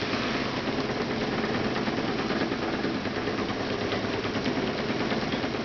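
Motor-driven lechuguilla fibre-stripping machine running steadily, its engine and rotating shaft giving an even mechanical drone.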